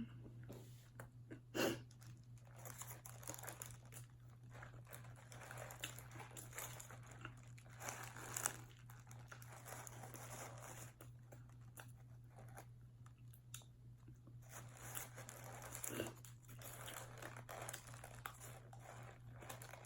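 Paper burger wrapper crinkling and rustling, close to the microphone, with some chewing and crunching of food in between; a few louder crackles stand out. A faint steady low hum runs underneath.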